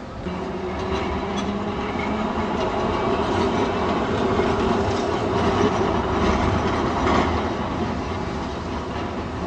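Vintage Blackpool electric tram running past on its rails, with a steady motor hum and a few wheel clacks. The sound builds to its loudest about six seconds in, then slowly fades.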